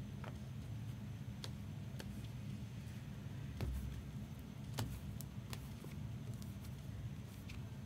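Steady low room hum with scattered light clicks and taps of cards in plastic cases being handled and set down, the loudest two near the middle.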